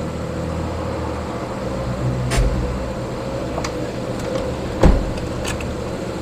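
A steady machine hum, with a few light clicks and one dull thump about five seconds in.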